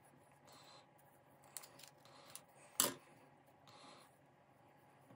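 Hands handling ribbon and fabric on a paper-covered table: soft rustling and a few light ticks, with one sharp click a little past halfway.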